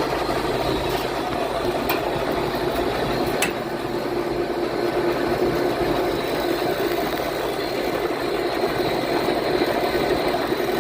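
American Standard air-conditioning unit running with both compressors and the condenser fan on: a steady mechanical drone and hum. The condenser fan is making a lot of noise, and the technician suspects it of over-amping and tripping the breaker. A couple of faint clicks come about two and three and a half seconds in.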